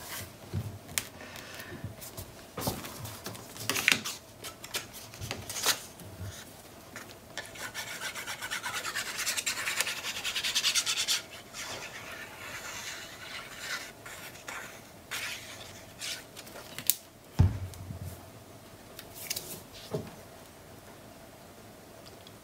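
Hands handling patterned paper and card stock on a cutting mat: scattered taps and rustles, with about three seconds of steady rubbing of paper near the middle. A single thump comes later on.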